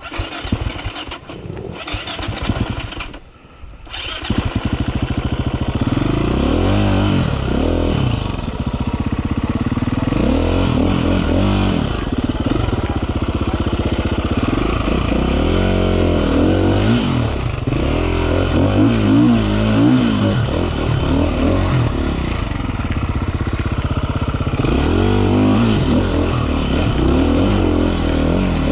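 KTM EXC 350F single-cylinder four-stroke enduro bike ridden off-road. After a quieter stretch with a few knocks, the engine comes in loud about four seconds in. Its revs then rise and fall over and over as the rider accelerates, shifts and backs off over rough ground.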